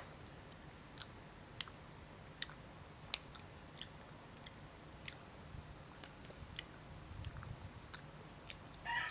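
Faint chewing of kiat-kiat mandarin segments, with scattered small wet mouth clicks. A rooster starts crowing at the very end.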